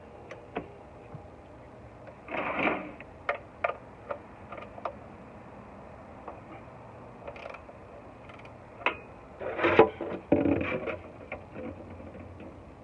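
Scattered sharp clicks and knocks, with two short, louder noisy bursts, one about two and a half seconds in and one around ten seconds in.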